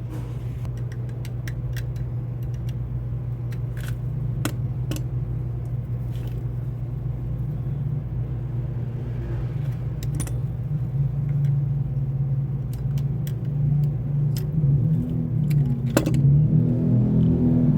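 A steady, low engine hum from a running motor vehicle, growing louder over the last few seconds. Scattered light metallic clicks and taps sound over it.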